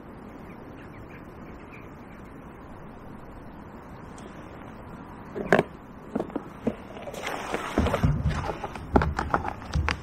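Steady low outdoor background noise, then from about halfway a run of clicks, knocks and rustling as an angler moves and handles his gear close to the microphone. The rustling and low thumps are loudest near the end.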